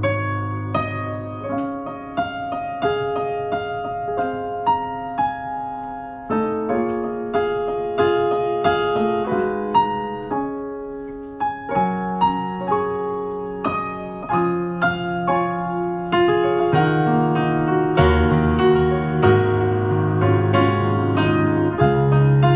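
Solo piano playing a slow melody, each note struck and left to ring over sustained low bass notes, growing fuller toward the end.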